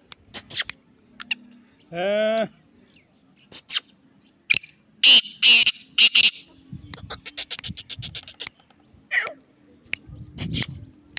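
Black francolin calls: a string of short, harsh, grating notes. There is one drawn-out call about two seconds in, loud harsh notes around five to six seconds, and a fast clicking rattle just after.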